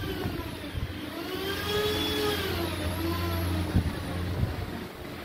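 A motor running with a steady low hum, its whine rising and then falling in pitch over a couple of seconds, with a couple of short knocks near the end.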